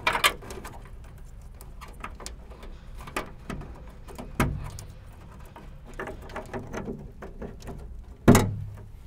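Plastic wiring-harness connectors being handled and pushed into their sockets in a car's trunk lid: small scattered clicks and rustles, a sharper click about four seconds in and a louder one near the end.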